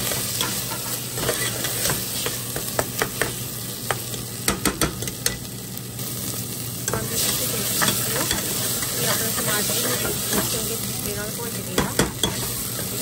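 Onion-tomato masala sizzling steadily as it is roasted in oil in a steel pressure cooker, while a steel spoon stirs it and scrapes against the pot. The scrapes make irregular sharp clinks that bunch up about three to five seconds in and again near the end.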